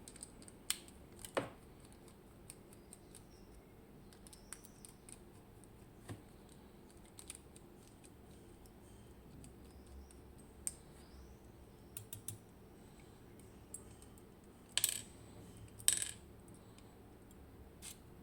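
Small metal clicks and taps of tools working on a Miwa EC lock cylinder as it is taken apart, irregular and sparse, with two louder clicks near the end.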